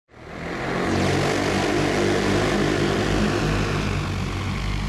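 Aircraft engine and propeller noise used as an intro sound effect. It swells up from silence within the first half second and then holds steady, with a low, steady hum under it.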